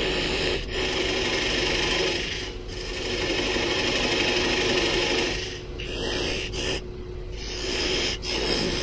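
Gouge cutting the face of a square walnut blank spinning on a Powermatic lathe: a continuous hiss of wood shavings peeling off, easing briefly twice between passes, over the lathe's steady hum.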